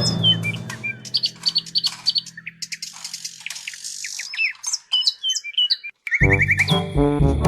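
Birds chirping and tweeting in many short, quick calls, while a music track fades away during the first second. After a brief gap near the end, a new music track begins.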